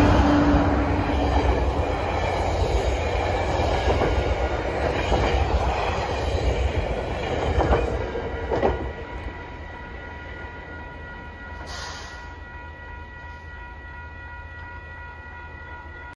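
GO Transit commuter train passing at speed, a steady rumble of wheels on rail. Two sharp clacks sound as the last cars go by, about eight seconds in, and then the noise quickly dies away as the train moves off.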